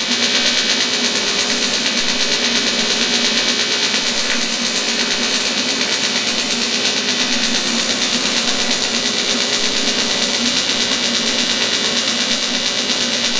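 TIG welding arc from a STAHLWERK AC/DC TIG 200 Pulse inverter welder, burning on sheet metal as filler rod is fed in, with the pulse function on. It makes a loud, steady hiss with a hum underneath and a slight, regular pulsing.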